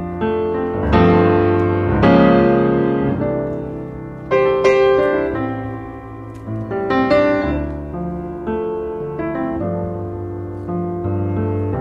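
Background piano music: chords over a sustained bass line, with new chords struck every second or two.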